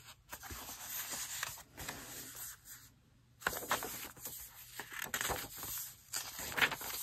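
Paper rustling and scraping as hands handle a fabric-covered card and turn the stiff pages of a junk journal made from a Little Golden Book, in several bursts with a louder page rustle near the end. A moment of dead silence falls about three seconds in.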